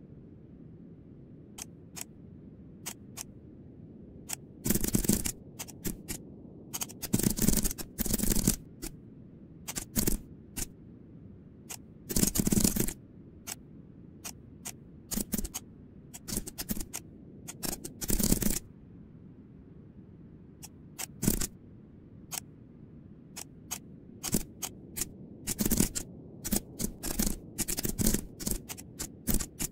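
Computer keyboard keys and mouse buttons clicking in irregular bursts, with some quick runs of keystrokes lasting up to about a second.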